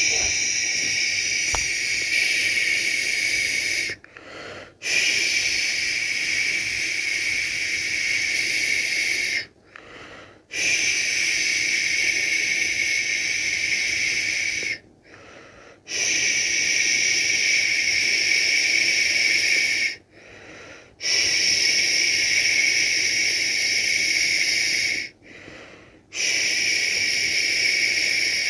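A person shushing a baby to sleep: six long, steady "shhh" sounds of about four to five seconds each, with a short pause for breath between them.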